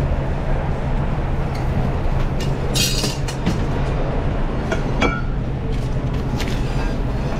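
Commercial kitchen line: a steady low hum of ventilation with scattered clinks and knocks of metal and plates, including a brief bright clatter about three seconds in.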